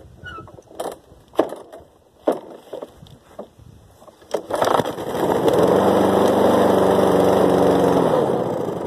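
A few knocks and clicks, then the 2007 Snapper self-propelled mower's small engine catches on a cold start about halfway through, runs steadily for about three seconds and then dies away near the end. The owner takes the short run for the last of the gas in the carburettor burning off.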